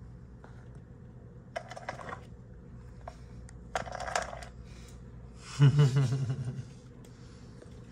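Cat working a treat puzzle board: the round plastic sushi lids clack and rattle twice as it noses and paws them along their tracks, then a louder, grating scrape lasts about a second near the end.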